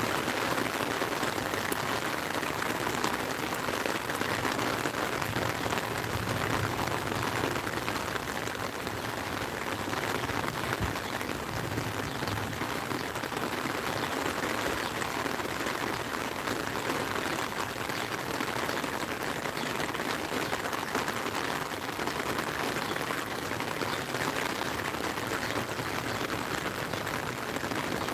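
Steady rain falling on a lake and on an umbrella overhead: an even hiss full of small drop ticks.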